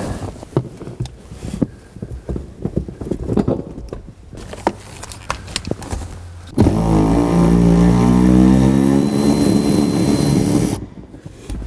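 A few seconds of small clicks and knocks from hands and tools at the seat mounts. Then a cordless power tool runs steadily for about four seconds, spinning out a seat-mounting bolt, and stops abruptly.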